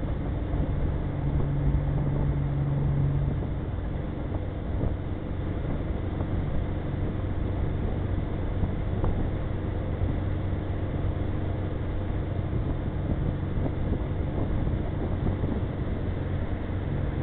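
Tow boat's engine running steadily under way, a low steady hum, over the constant rush of water from the wake and the wind.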